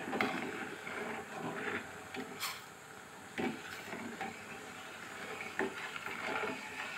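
Steel ladle stirring sugar water in a stainless steel pot, scraping against the pot, with a few sharper clinks, while the sugar dissolves.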